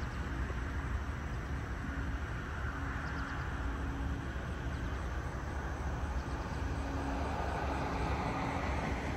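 Steady rumble of road traffic with a faint low hum, swelling a little about three seconds in and again near the end as vehicles go by.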